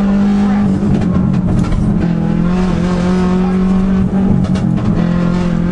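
Subaru Impreza WRX's turbocharged 2.0-litre engine running hard up a hillclimb course, with wind and road noise over it. The steady engine note breaks and wavers briefly about a second in and again past four seconds.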